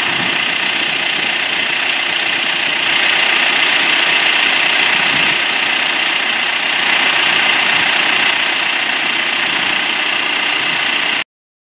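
John Deere 5085M tractor's diesel engine idling steadily, cutting off abruptly near the end.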